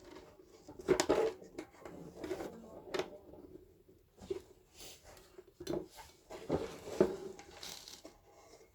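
Scattered knocks and clicks from a speaker cabinet and its parts being handled and pulled apart, the loudest about a second in and again around seven seconds.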